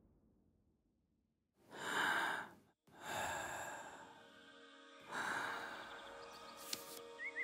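Three breaths, each a second or so long and about a second and a half apart, from a character coming to. Soft music comes in under the last breath, and a bird starts chirping near the end.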